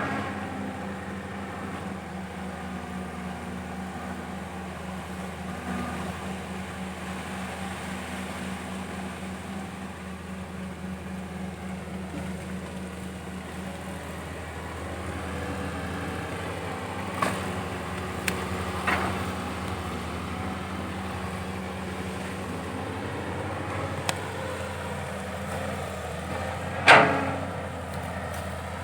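Caterpillar 320 hydraulic excavator's diesel engine running steadily as it digs, with a few sharp knocks, the loudest near the end.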